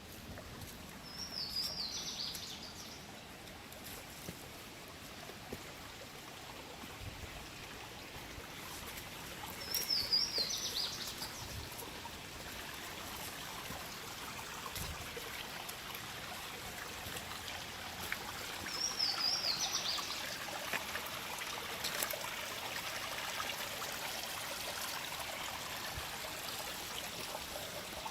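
Water running steadily, with a bird giving the same short, high, wavering call three times, about nine seconds apart.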